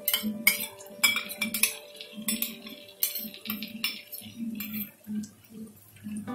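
A steel spoon clinking and scraping against a small steel bowl and the rim of the wok in a run of quick, irregular clinks as ghee is spooned out into the pan. The clinks thin out near the end.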